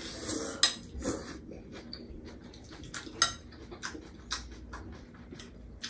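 Tableware clinking during a meal: serving spoons and forks tapping against glass bowls and plates in short, irregular clicks, the sharpest about half a second in and just after three seconds.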